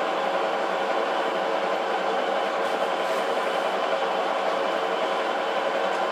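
Metal lathe running steadily during a thread-cutting pass on a long steel screw: a constant hum and gear whine from the headstock and feed gearing, with no starts or stops.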